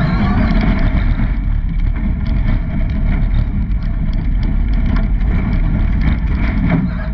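Extreme E Odyssey 21 electric off-road race car driven at speed over sand and rocky ground. The running noise is steady and heavy, with wind buffeting the microphone and many small clicks and knocks from stones and rough ground.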